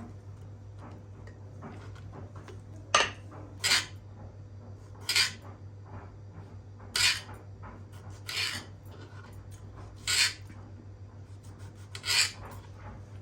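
Short scrapes of a utensil against a dish, about seven strokes spaced a second or two apart, over a steady low hum.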